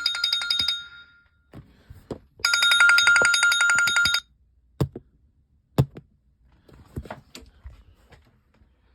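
Alarm clocks ringing: a chiming tone dies away within the first second, then a rapid, trilling bell-like ring sounds for about two seconds and cuts off. Scattered clicks and knocks follow, the loudest two about a second apart.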